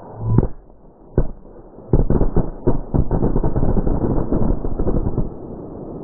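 A Seismic Wave pack of firecrackers going off: two single bangs in the first second or so, then about three seconds of rapid, overlapping crackling bangs.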